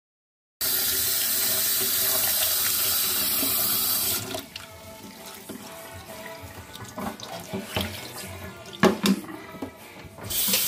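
Kitchen tap running hard into a stainless steel sink. About four seconds in the rush drops away to splashing and a few knocks as a plastic tub is handled in the basin, and the tap runs hard again near the end.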